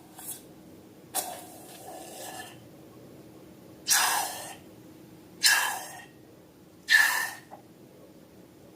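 Slime being squeezed and worked, letting out a series of short airy squelches, a few with a brief squeaky note, about one every second and a half.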